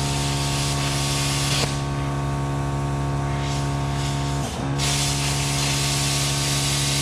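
Plasma cutter cutting a steel truck frame: a steady electrical hum from the machine under a rushing hiss of air at the torch. The hiss drops away about one and a half seconds in and comes back near the five-second mark.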